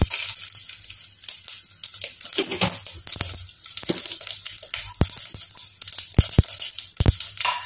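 Mustard seeds and dried red chillies sizzling in hot coconut oil in an aluminium pot, with scattered sharp pops as the seeds begin to splutter. The pops come more often and louder in the second half.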